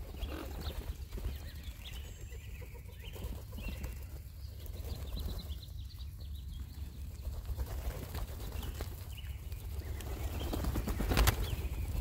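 Band-tailed pigeons pecking birdseed off a tree stump: a patter of quick beak taps. Near the end, a loud flurry of wing flaps as a pigeon flies in.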